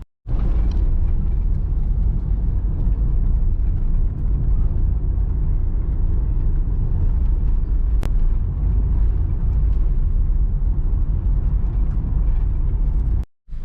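Steady low rumble of a road vehicle on the move, engine, road and wind noise together, broken by two brief drops to silence at edit cuts, one at the start and one near the end.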